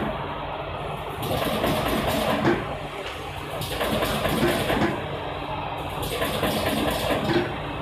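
Cardboard partition assembler machine running: a steady motor hum under a repeating mechanical clatter from the interlocking and receiving mechanism, with small peaks every couple of seconds.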